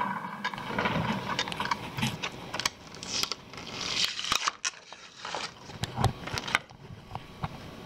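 A hard PLA plastic print being gripped and pulled off a 3D printer's bed of blue painter's tape: irregular clicks, cracks and scraping, densest about three to four seconds in.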